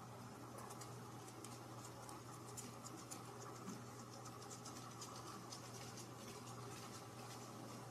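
Faint, irregular scratchy clicks and rustles of a kitten pawing at a wand toy's pompom on fabric, over a low steady hum.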